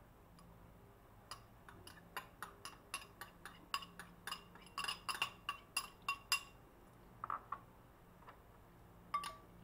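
Metal spoon clinking against a small ceramic bowl while minced aromatics are scraped and tapped out of it: a quick run of sharp, ringing clinks, about four a second, for some five seconds, then a few more clinks near the end.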